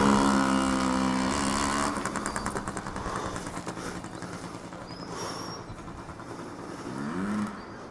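Yamaha PW50's small two-stroke single-cylinder engine running under throttle. It is loudest at the start and fades, with the pitch rising briefly near the end.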